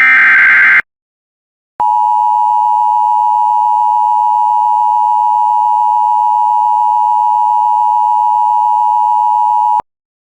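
The last burst of an Emergency Alert System's digital SAME header ends less than a second in. After a short pause comes the EAS attention signal, the two-tone 853 and 960 Hz alert held steady for about eight seconds, which cuts off suddenly. It marks an emergency alert, here a severe thunderstorm warning, about to be read.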